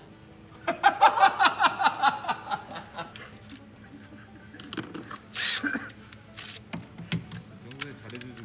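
A burst of laughter about a second in, going in quick even pulses over background music, then a short hiss-like burst of noise a little past the middle and a few scattered clicks.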